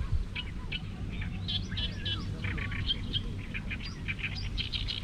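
Small birds chirping and twittering in quick runs of short calls, over a steady low rumble.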